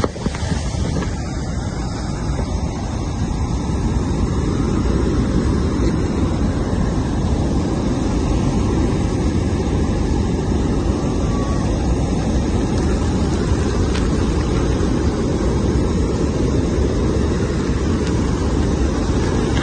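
Steady rushing roar of Victoria Falls and its drifting spray, with wind rumbling on the phone's microphone. It grows louder about four seconds in.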